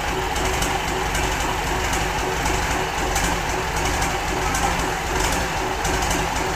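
Mitsubishi Fuso 6D22 inline-six diesel engine from a 1998 Fuso The Great, running steadily on a test stand just after its repair, with its engine-driven radiator fan turning.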